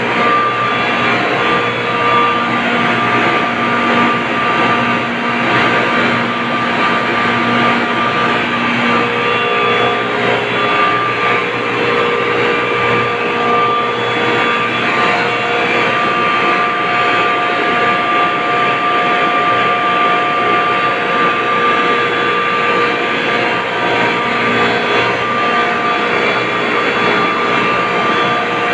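Large industrial refrigeration compressors for ice-block making (Mycom and Sabroe machines) running with their electric drive motors. A loud, even machinery drone with several steady whining tones over it, unchanging throughout.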